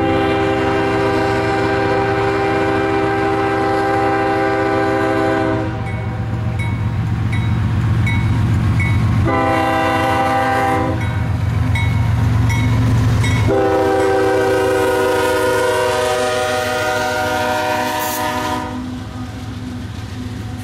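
Approaching CSX diesel freight locomotive sounding its air horn: a long blast, a short one and another long one, over the steady low rumble of the train. After the horn stops near the end, the locomotive passes close by.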